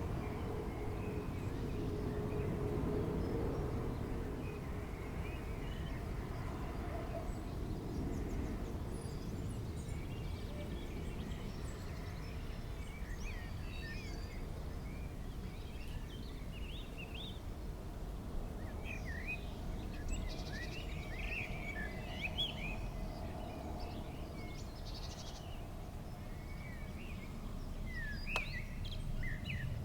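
Songbirds chirping in many short, quick calls, growing busier through the second half, over a steady low outdoor rumble. In the first few seconds the hum of a passing jet on landing approach fades away.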